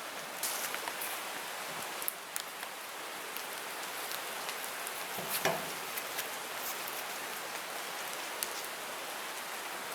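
Steady hiss of rain falling, with a few sharp taps of drops; the loudest tap comes about five and a half seconds in.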